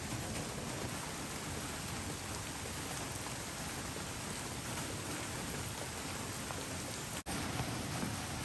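Steady rain falling, an even hiss with no pauses except a brief dropout about seven seconds in.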